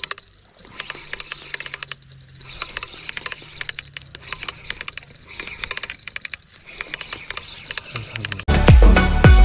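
Spinning reel being wound in with a fish hooked on the line: a rapid run of small clicks and rattles from the reel's gearing and handle, over a steady high-pitched drone. Music cuts in abruptly near the end.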